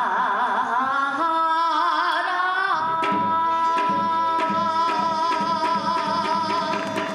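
Music: a melody with heavy vibrato that settles about three seconds in on one long held high note, over a drum struck in a steady beat.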